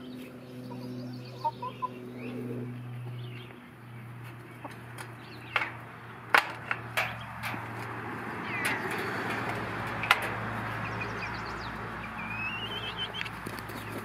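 Young chickens clucking and peeping, with short rising calls near the end. A handful of sharp clicks and knocks stand out, over a low steady hum.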